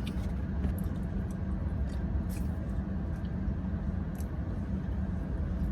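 Steady low rumble and hum inside a car with the air conditioning running, with a few faint clicks.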